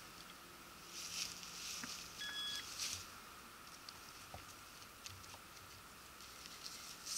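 Faint rustling and scraping in dry leaf litter and soil in a few short bursts, with a short faint electronic beep a little over two seconds in.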